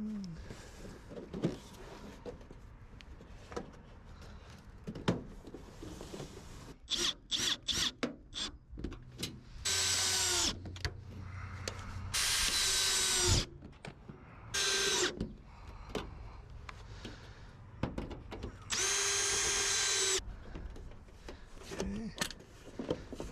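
Cordless power drill driving screws to fasten gutter guards: four runs of steady motor whine, each one to one and a half seconds long, winding down in pitch as the trigger is released. Shorter, choppy bursts of the drill come just before them.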